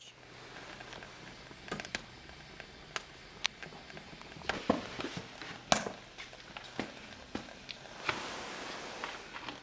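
Fire crackling, with irregular sharp pops over a low steady background.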